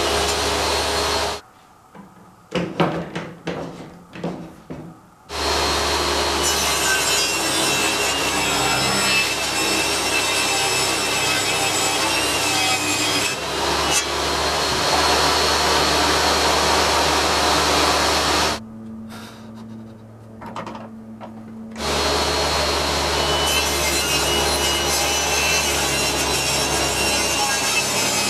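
Makita table saw running and ripping MDF board, a steady loud whir of motor and blade cutting through the fibreboard. Twice it drops away for a few seconds, with a few knocks of the board being handled in between.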